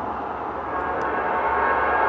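An approaching train: a steady rumble growing louder as it nears, with the locomotive's horn tones coming in near the end.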